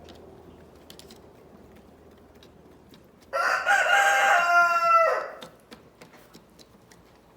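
A rooster crowing once, a single crow of about two seconds beginning a little over three seconds in, with faint scattered ticks around it.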